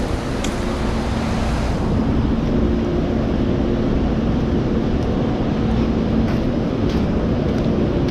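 A steady low engine or machinery hum with several held low tones. A footstep on concrete sounds about half a second in, and a few more light clicks come later.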